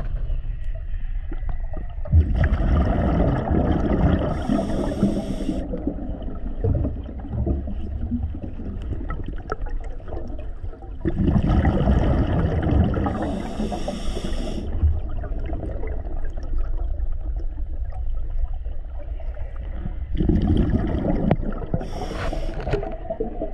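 Scuba diver breathing through a regulator underwater: three rounds of exhaled bubbles gurgling out, about nine seconds apart, each ending in a short high hiss from the regulator.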